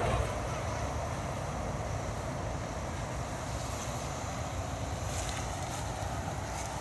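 Steady low rumble of highway traffic with wind buffeting the microphone, and a few faint clicks in the second half.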